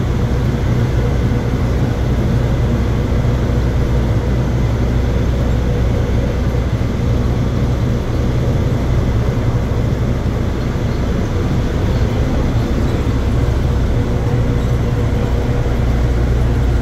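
Plane Train automated people mover running between stations, heard from inside the car: a steady, loud low rumble with a faint steady whine.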